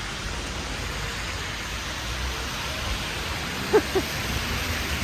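Freezing rain mixed with ice pellets coming down steadily, a constant hiss. Nearly four seconds in, two short squeak-like sounds come a quarter of a second apart and stand out above it.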